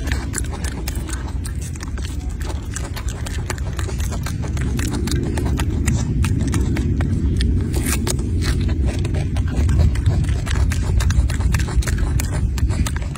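Golden snub-nosed monkey chewing food and smacking its lips close to the microphone: a rapid, irregular run of wet clicks over a steady low rumble.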